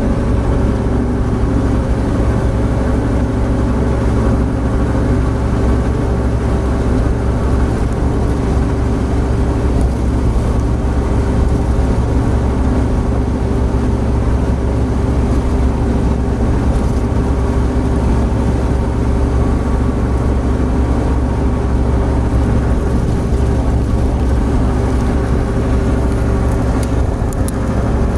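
Opel Blazer cruising at a steady 115 km/h, heard from inside the cabin: constant engine drone mixed with road and wind noise, with no change in pitch or level.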